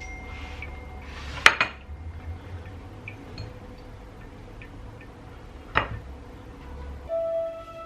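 Dishes and utensils knocking and clinking: a sharp, ringing knock about a second and a half in, another near six seconds, and light ticks between them. Music begins just before the end.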